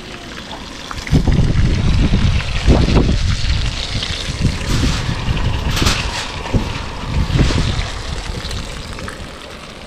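Wind buffeting the microphone: an uneven low rumble that rises about a second in and dies down near the end.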